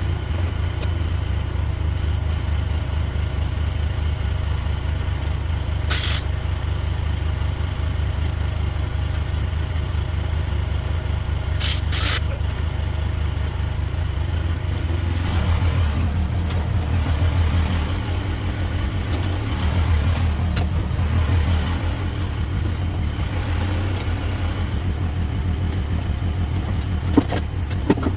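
Mini excavator's engine running steadily while it works, with a few sharp knocks about six seconds in and twice around twelve seconds in as the claw works the rock steps loose.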